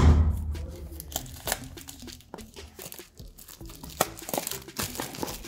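Clear plastic shrink wrap crinkling and tearing as it is peeled off a cardboard watch box, in scattered crackles. A dull bump of the box being handled comes right at the start.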